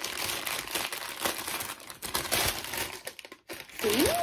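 A paper gift bag being crinkled and rustled as it is opened by hand, irregular crackling for about three seconds. Near the end a woman says a drawn-out 'ooh' that rises and then falls in pitch.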